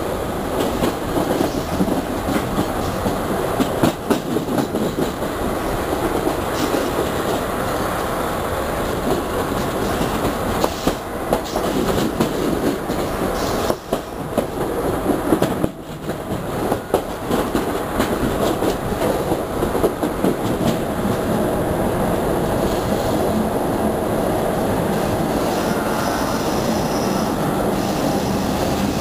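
Passenger train carriages of the Vitória–Minas railway (EFVM) running along the track, heard from an open carriage door. There is a steady rumble of steel wheels on rail, with irregular clickety-clack over the rail joints.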